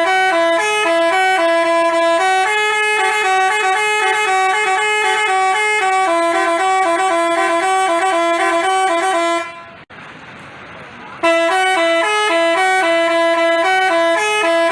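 Basuri telolet multi-tone bus horn playing a stepping melody of steady horn notes. About ten seconds in the notes break off for a second and a half of hiss with a single click, then start again.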